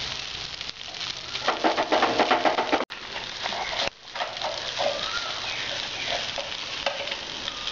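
Noodles and vegetables sizzling in a hot frying pan while being stirred and tossed, with a metal spatula and fork clicking and scraping against the pan. The sound breaks off sharply about three seconds in, then the sizzle goes on more softly.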